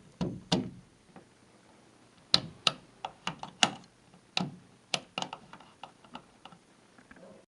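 A series of irregular sharp clicks and taps, about a dozen over several seconds, the loudest about two and a half seconds in.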